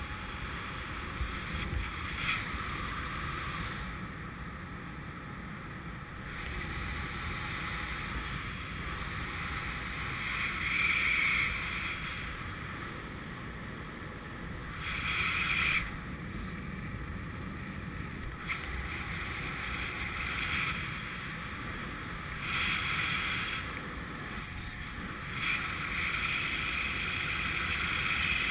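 Wind rushing over the microphone of a GoPro carried in paraglider flight: a steady rush with louder swells every few seconds.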